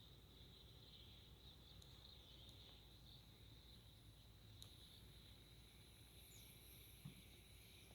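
Near silence: faint outdoor ambience with a steady, high insect chirring. There is a small click around the middle and a soft knock near the end.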